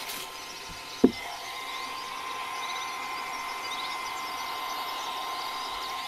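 Blow-dryer running steadily on its lowest, cool setting, a hum with a steady whine. About a second in there is one sharp knock, as of something hard set down on the table.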